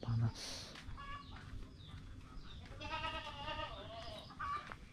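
Farmyard animal calls: one long, wavering call about three seconds in, with shorter clucking calls from chickens around it.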